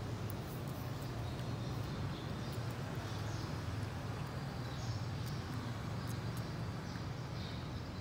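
Steady low background hum, with faint short high chirps now and then.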